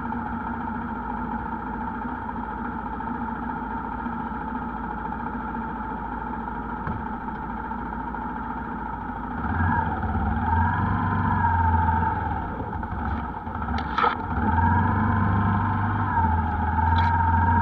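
TVS Apache RTR 160 motorcycle's single-cylinder engine running at a steady idle, then getting louder about nine seconds in as the bike is ridden, its pitch dipping and rising. A sharp knock sounds about fourteen seconds in.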